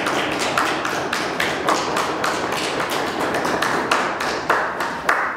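Lecture audience applauding: a dense, steady run of sharp raps that fades out at the very end.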